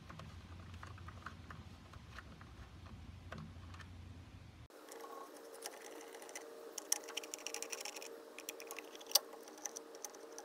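Small scattered clicks and ticks of a screwdriver backing out the screws of a remote control box cover, denser and louder in the second half. A faint steady hum sets in about halfway through.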